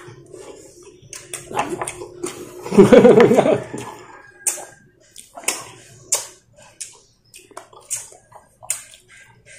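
Close-up eating sounds: wet lip-smacking and chewing clicks as a man eats fried chicken and rice with his fingers. A loud burst of his voice comes about three seconds in.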